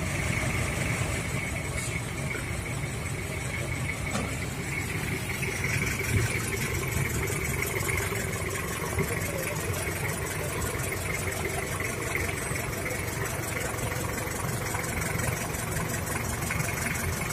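Diesel engine of a Daihatsu Taft 4x4 idling steadily.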